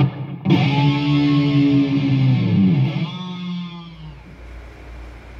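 Intro music: an electric guitar chord struck and left to ring, dying away between three and four seconds in, after which only a low steady hum remains.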